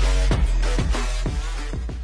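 Background music with a deep bass and a steady drum beat, fading out in the second half.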